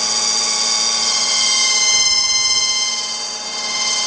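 Thin aluminum hard-drive platter ringing with a steady high-pitched squeal as a lathe tool takes a facing cut across it, stripping the magnetic coating off the disk.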